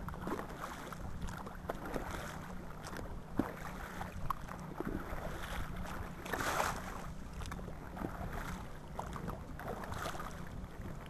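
Small boat under way on the lake: a steady low drone with water splashing and sloshing past the hull, and scattered small knocks.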